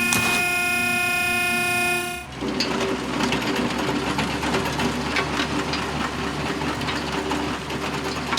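Background music, then about two seconds in a steady mechanical vehicle sound with a droning horn-like tone and fast clatter.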